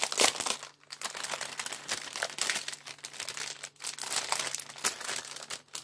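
Clear plastic packaging film crinkling and crackling in irregular rustles as a rolled diamond-painting canvas is worked out of its plastic sleeve. A faint steady hum runs underneath.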